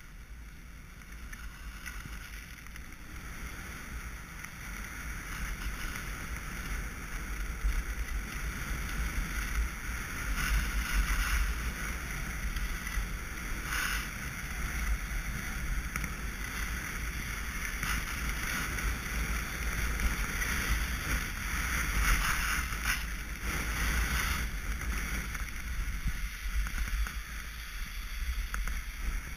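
Wind rushing over a GoPro camera's microphone with a low rumble, and the hiss of skis sliding over snow, swelling louder in a few spells through the run.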